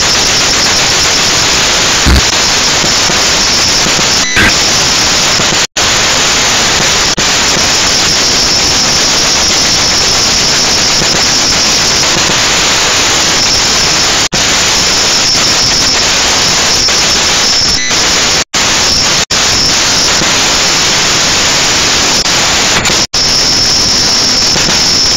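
Toy quadcopter's motors and propellers running, picked up by its own onboard camera as a loud, steady, harsh noise with a high buzz on top. The sound cuts out for an instant several times.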